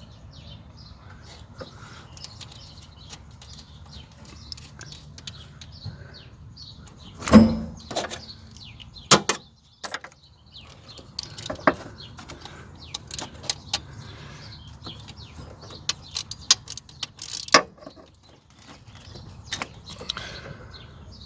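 Metal hand tools clicking and clinking irregularly as the nut on the starter's positive battery cable terminal is tightened with a 12 mm wrench, with a louder knock about seven seconds in.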